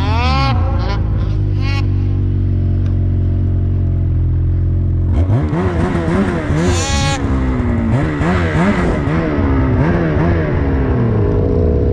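Ski-Doo Summit's turbocharged two-stroke snowmobile engine being ridden. It revs up at the start, holds a steady drone for a few seconds, then from about five seconds in the pitch swings up and down with repeated throttle changes before settling near the end.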